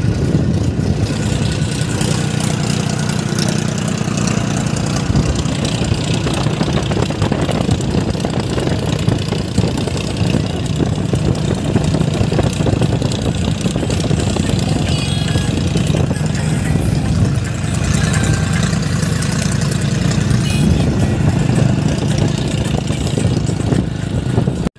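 Diesel tractor engine running steadily on the move, holding an even engine speed.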